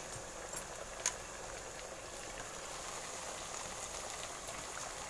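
Onions, tomatoes and green chillies sizzling in hot oil in a kadai, a steady hiss, with a single click about a second in.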